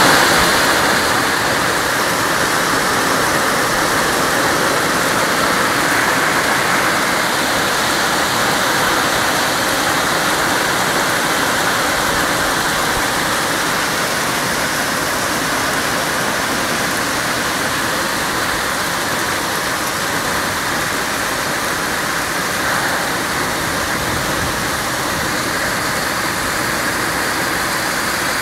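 A hailstorm: small hailstones and rain falling steadily and hard on roofs, paving and trees, a dense, even rush of countless tiny impacts.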